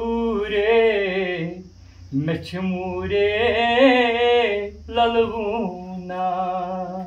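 A man singing unaccompanied in a slow, wavering melody: long held phrases with short pauses between them.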